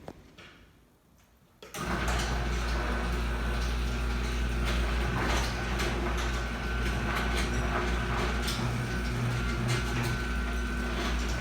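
Chamberlain garage door opener's electric motor starting suddenly and running steadily, with a hum and a thin whine and scattered ticks, after a short click near the start. The door runs without stopping, a sign that the relay board's cold solder joint is fixed.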